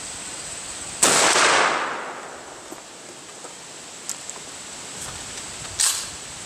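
Remington 870 Express 12-gauge pump-action shotgun firing a single shot about a second in; the blast echoes away for about a second. A short sharp clack follows near the end.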